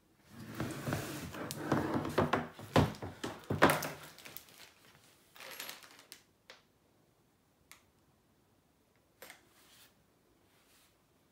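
Parts of a flat-pack baby changing table being handled: about four seconds of rustling and clattering of plastic packaging and parts with a few sharp knocks, then a few scattered light clicks and taps.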